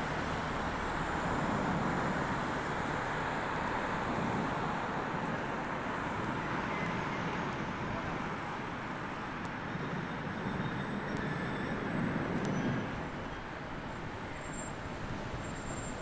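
Steady city road traffic noise: cars passing along a busy street in a continuous even rumble and hiss.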